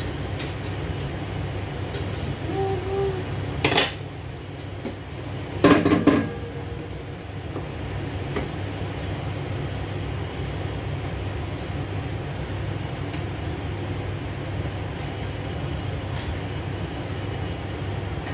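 Steady low hum of a kitchen range hood fan, with a clank of cookware about four seconds in and a louder clatter of pots and dishes around six seconds.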